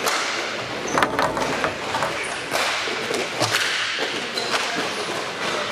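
Roller-hockey play: several sharp clacks of sticks striking the puck and the rink floor, over the steady rolling hiss of inline skate wheels on the court.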